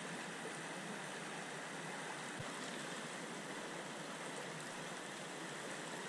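Steady rush of a creek flowing over rocks.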